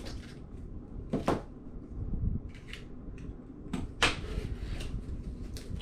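A comic mystery box being opened and its contents handled by hand: a few sharp knocks and clicks, the loudest about four seconds in, with scraping and rustling between them.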